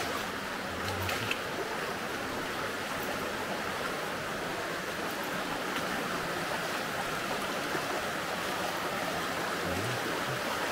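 Shallow mountain river running steadily over stones and pebbles in the riverbed, an even rushing sound.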